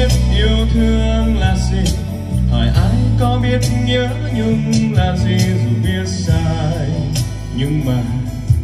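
A man sings a song into a microphone over a band accompaniment with bass, guitar and regular drum and cymbal hits, all amplified through RCF PA loudspeakers for a soundcheck.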